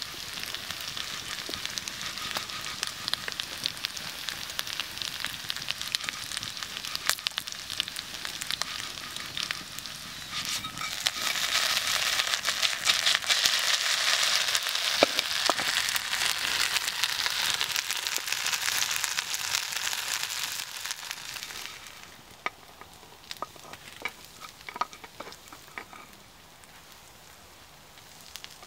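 Shredded hash browns sizzling and crackling in bacon grease in a skillet over a campfire, the sizzle growing louder about a third of the way in. About three quarters of the way through, the sizzle drops away to fainter scattered pops and crackles of the campfire.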